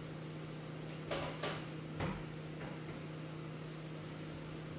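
Steady low electrical hum with two brief sharp clicks a little over a second in and a fainter one about two seconds in.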